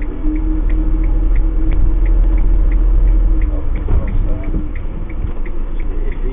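Motorhome cab while driving slowly: a low engine and road rumble with a steady hum, and a light regular ticking about three times a second.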